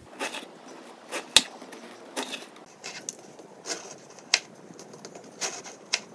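Kitchen knife slicing through a baked jam-filled cookie log, a short crunching cut every half second to a second, about ten in all, with one sharper tap of the blade on the board about a second and a half in.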